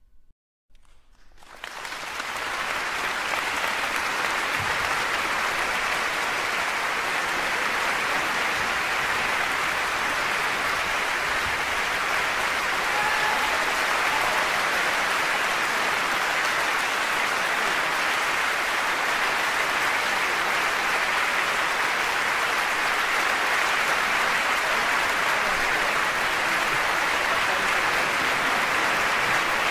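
A steady, even hiss of noise that sets in after a brief silence about a second and a half in, then holds at one level.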